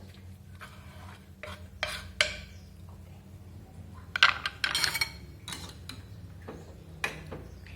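Utensils clinking and clattering against a cooking pot as chopped vegetables go into the boiling instant noodles and are stirred, with a dense burst of clatter about four to five seconds in, over a steady low hum.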